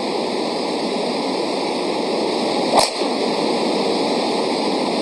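Golf driver striking a ball off the tee: a single sharp crack nearly three seconds in, over a steady background hiss.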